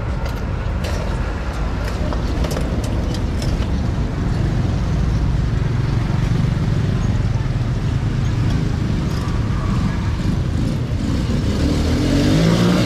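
Busy market-street traffic: a steady low rumble of vehicles with a few scattered clicks. Near the end a vehicle engine comes close and grows louder.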